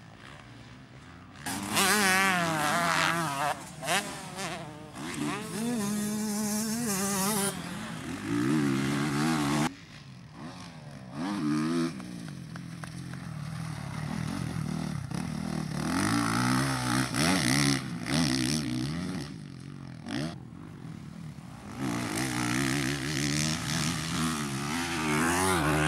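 Honda CRF450R motocross bikes, single-cylinder four-stroke engines, revving up and down in repeated bursts as the throttle is opened and shut, with several loud close passes and quieter stretches between.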